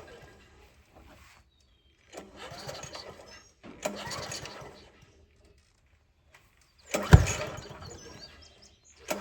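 Garden tiller's small engine cranked three times with brief sputtering bursts that die out each time, with a sharp loud pop about seven seconds in. It fires on gas poured into it but does not catch and run.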